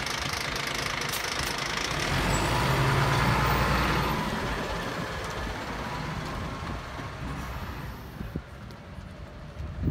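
Glass recycling truck's engine pulling away and driving off; the engine grows louder about two seconds in, then fades as the truck moves off down the street.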